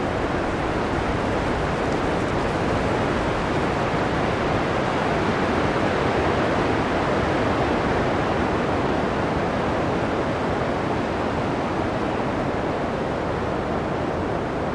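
Strong blizzard wind blowing as a steady, dense rush of noise, swelling a little in the middle and easing slightly near the end.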